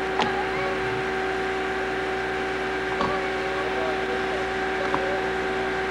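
Steady hum and hiss of an old home-video camcorder recording, with a few faint short knocks, one near the start, one about three seconds in and one near the end.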